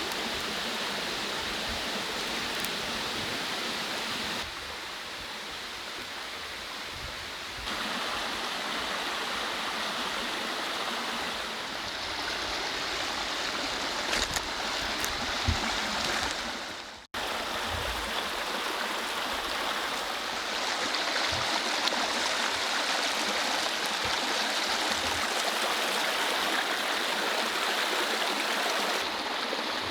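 Mountain stream rushing over rocks, a steady noise of flowing water that changes level in steps and drops out for an instant about halfway through.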